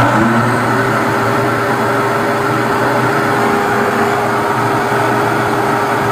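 Flex-shaft drain-cleaning machine running steadily, its motor spinning the cable inside the corrugated sheath fed down a blocked urinal drain pipe. It comes up to speed at the very start, then holds a steady hum.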